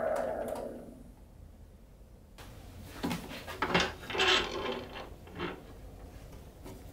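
A wood lathe's running noise dies away over the first second. A few seconds in comes a cluster of metal clunks and knocks as the lathe's tool rest is slid and set in front of the maple bowl blank.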